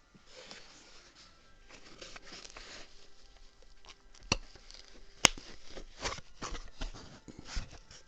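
Irregular rustling and handling noise with a few sharp clicks and knocks, the sharpest a little past halfway, over faint background music.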